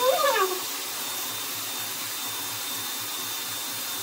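Dyson Airwrap hot-air styler running with its curling barrel: a steady rush of air with a thin, steady high whine from its motor. A short voice sound rises over it at the very start.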